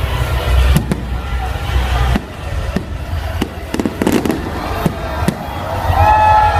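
Fireworks display: aerial shells bursting with a series of sharp bangs, several in quick succession around the middle, over a steady low rumble.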